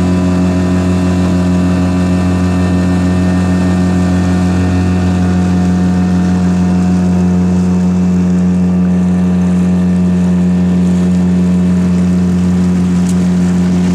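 Outboard motor of a small open boat running steadily under way, a loud, even drone.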